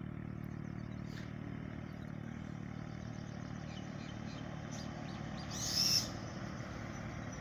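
Daewoo coach bus approaching along the road, its diesel engine a steady low hum growing out of the distance. A brief loud hiss cuts in about five and a half seconds in.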